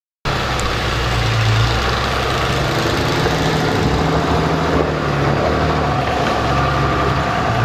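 A vehicle engine idling steadily, starting suddenly just after the start.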